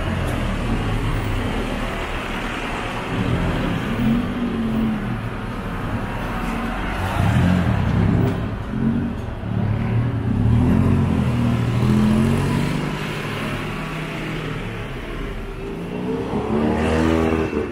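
Street traffic: the engines of motor vehicles passing close by, rising and falling in pitch, with one accelerating past near the end.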